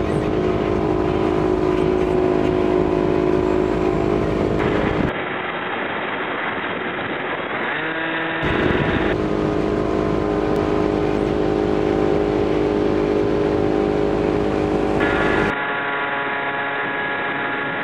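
Steady motor drone at a constant pitch from the Hobbyking Bixler RC plane's electric motor and pusher propeller, mixed with the ski boat's engine. The tone changes abruptly about five seconds in, again about eight seconds in, and once more near the end.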